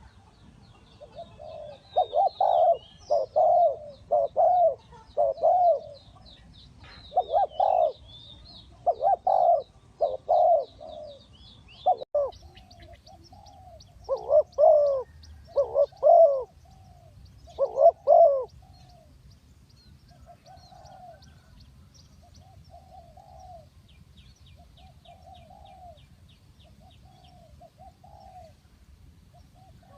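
Spotted doves cooing: loud coos in repeated phrases for most of the first two-thirds, then fainter, more distant coos. A small bird chirps high and steadily behind them through the first part.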